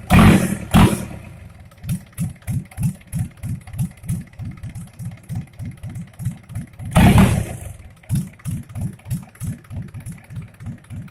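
Mitsubishi 4D34 four-cylinder diesel engine idling with an even, pulsing beat about three times a second. It is revved briefly at the start and again about seven seconds in.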